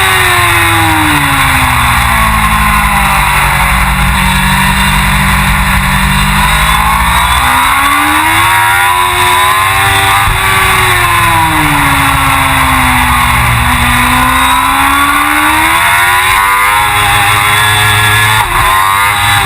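Suzuki GSX-R1000 World Superbike's inline-four engine at racing speed. The revs drop off over the first few seconds and stay low for a while, then climb about halfway through, fall again, and climb once more near the end, as the bike brakes for corners and accelerates out of them.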